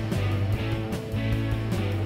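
Background music, a rock track with guitar and a steady beat.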